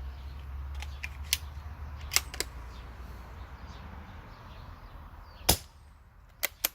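A single moderated shot from a CZ452 .22 LR rifle firing a subsonic round through a Parker Hale moderator: a short, sharp crack about five and a half seconds in. Lighter clicks come a few times before it and twice just after.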